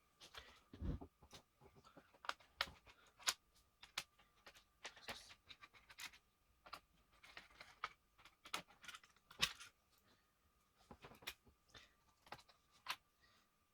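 Faint, irregular small clicks and taps of hands and tools working on an HP ProBook 650 G2 laptop during disassembly, with a duller knock about a second in. A faint steady high tone runs underneath.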